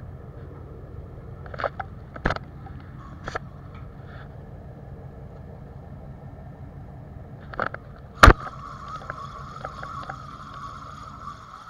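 Fishing boat's engine running with a steady low hum, with a few sharp knocks and clicks; the loudest knock comes about eight seconds in, and a steady higher hum joins right after it.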